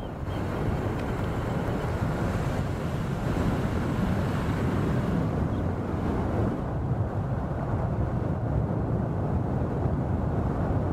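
Strong wind blowing: a steady, rushing noise weighted to the low end, its higher hiss thinning about two-thirds of the way through.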